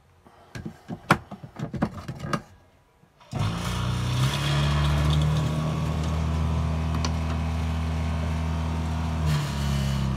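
A few knocks and clicks, then water running from a lever tap into an enamel basin. A steady motor hum sounds with the flow, the electric pump of a camper's water system running while the tap is open. The hum and the water start together about three seconds in and stop together just after the tap is shut near the end.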